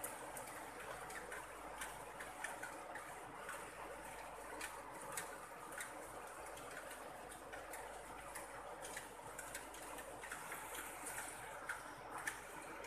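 Rain falling on leaves and grass: a steady soft hiss with irregular drops ticking on the leaves.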